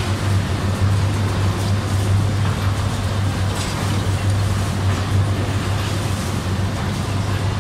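Steady low hum of sugar mill machinery, with an even wash of mechanical noise over it.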